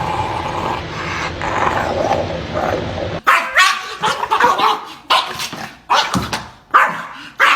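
Dog barking and yipping: a run of short, sharp barks starting about three seconds in, after a few seconds of steady noise.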